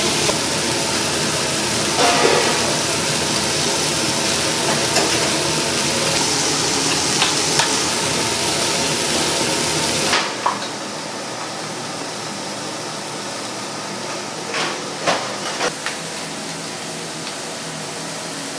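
Food sizzling as it fries, with a few sharp knocks of kitchen utensils. About ten seconds in the sound drops abruptly to a quieter sizzle with several more clicks and knocks.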